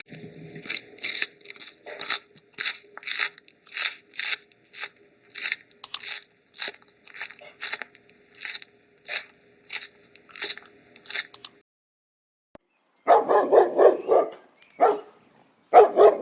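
An animal chewing something crunchy, about two crisp crunches a second for roughly eleven seconds. Then, after a short gap, a dog barks in quick rapid bursts twice near the end.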